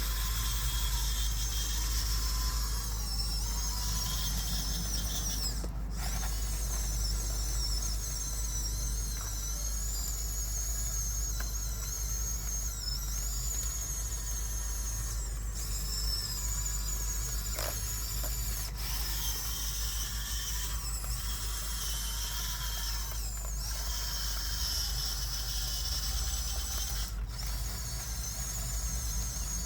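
Electric drive motors and gearboxes of a radio-controlled Huina 1554 bulldozer whining, the pitch wavering up and down, with a few very brief breaks.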